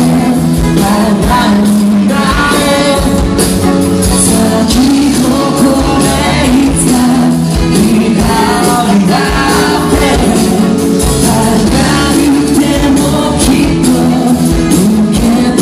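Japanese rock band playing live: electric guitars, bass and drums, with a male lead vocal singing over them. The mix is loud and dense, with steady drum hits.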